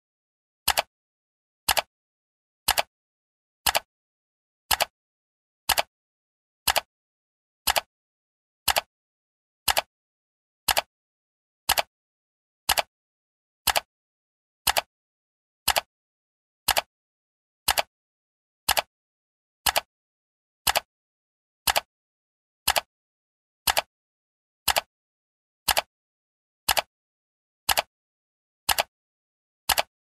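Clock ticking sound effect: one sharp tick each second, evenly spaced, with dead silence between the ticks.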